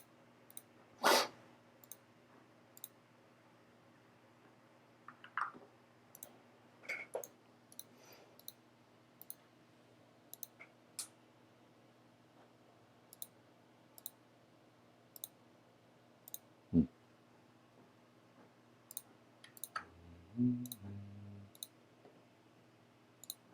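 Computer mouse clicking, scattered single clicks and short runs, over a faint steady electrical hum. A brief low tone sounds near the end.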